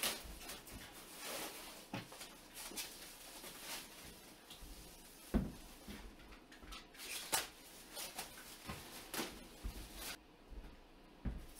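Clear plastic stretch wrap being pulled and peeled off a large cardboard shipping box, crackling and rustling in short bursts. A few dull thumps against the box, the loudest about five seconds in and another near the end.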